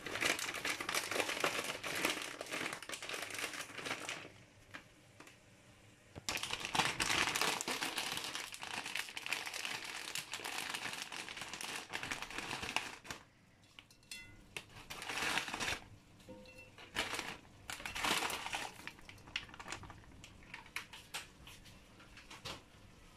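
Plastic packet of dried noodles crinkling as it is handled and opened, in several bursts, the longest in the first half and shorter ones near the end.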